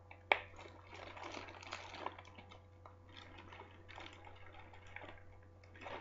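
Brownie mix being shaken out of a plastic bag into a mixing bowl: faint rustling and crinkling of the bag as the powder pours, with one sharp click about a third of a second in.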